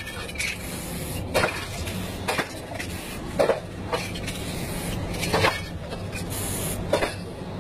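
Aerosol spray-paint can spraying in short hissing bursts over the canvas, with several brief sharp knocks in between, about one a second.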